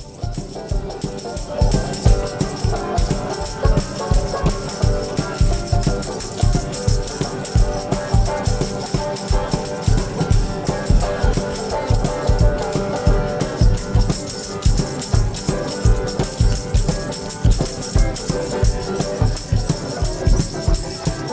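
Instrumental jam of an Ovation acoustic guitar and a banjo being strummed, with a handheld tambourine shaken and struck on a steady, quick beat.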